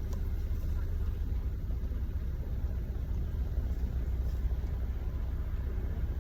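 Car engine running, a steady low rumble heard from inside the car.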